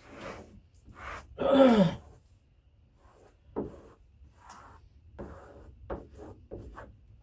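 A brief falling vocal sound about a second and a half in, then a run of short rubbing and squeaking strokes as a squeegee works a wet vinyl decal down onto a car door.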